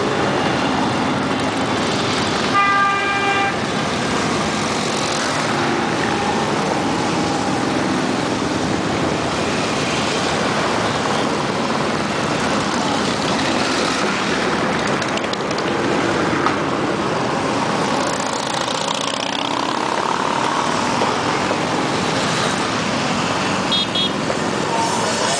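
A stream of Harley-Davidson motorcycles with V-twin engines running past in a steady, dense engine noise, with a horn sounding for about a second about three seconds in.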